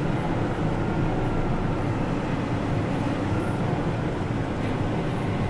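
A tractor engine running steadily, an even, mostly low-pitched mechanical noise.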